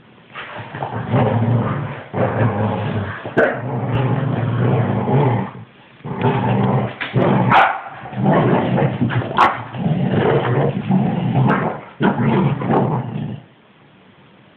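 Dogs scuffling with nearly continuous growling and snarling, broken by a few sharp yips. The growling pauses briefly about halfway through and stops over a second before the end.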